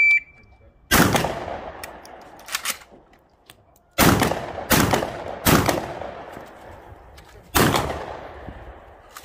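A short electronic shot-timer beep, then a string of 12-gauge shots from a Saiga-12 semi-automatic shotgun, irregularly spaced, with a quick double about four and five seconds in. Each shot fades over about a second.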